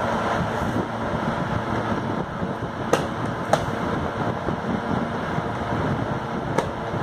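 Three sharp taps as a baby slaps the head of a small toy drum with a hand: one about three seconds in, another half a second later, and one near the end. A steady whooshing background noise runs underneath.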